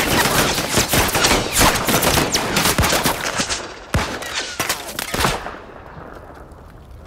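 Heavy automatic gunfire: a dense volley of rapid shots, with bullets striking a car. It thins out and stops about five seconds in, leaving a faint hiss.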